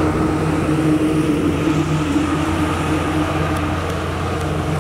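Truck engine droning steadily as it crosses a road bridge, easing off slightly toward the end.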